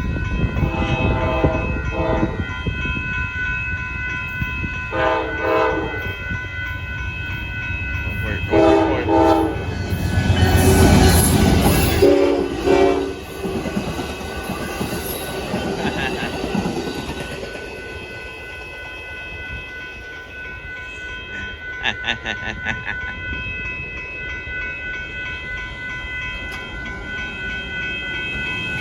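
Amtrak Texas Eagle passenger train passing, its locomotive horn sounding four blasts about three to four seconds apart. The train noise is loudest as the locomotive goes by, about ten to thirteen seconds in, then the cars roll past and the sound slowly fades.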